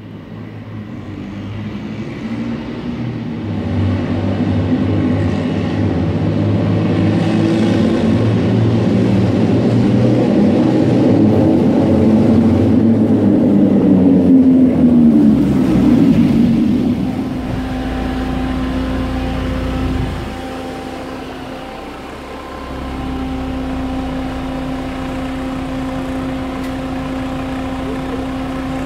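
Hägglunds BvS 10 tracked articulated vehicle driving, its engine running and growing louder for about fifteen seconds. It then drops in pitch and level and runs on steadily with a constant hum.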